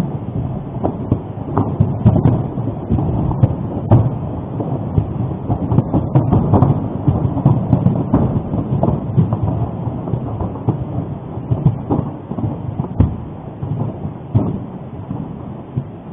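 Popocatépetl volcano's eruption rumbling: a continuous, loud low rumble with many short sharp cracks scattered through it, the loudest around two, four and thirteen seconds in.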